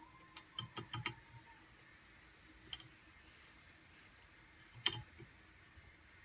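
Light metallic clicks from the connecting rod of a Vertemati 570 engine being handled and rocked on its crank to check the bottom end, which the owner suspects has a bad rod bearing. There is a quick run of about five clicks a second in, a single one midway, and a sharper knock near the end.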